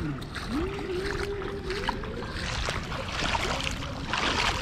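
Feet wading and splashing through shallow water, in uneven surges about once a second, with a drawn-out low tone over it near the start and again briefly near the end.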